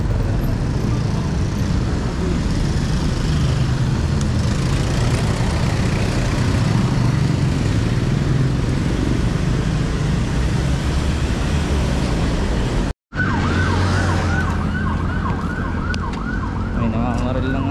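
Steady traffic and road noise from riding in city traffic. After a brief cut-out about thirteen seconds in, a vehicle siren yelps in rapid rising-and-falling sweeps, repeating several times a second.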